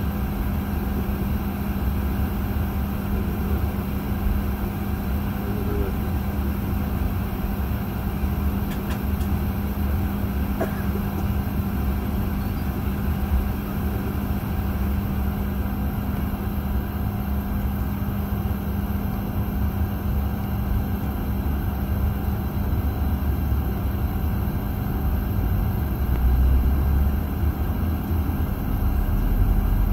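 Steady drone inside a Boeing 737-800 cabin as the jet moves slowly on the ground, with a constant low hum under it. A deeper rumble swells near the end.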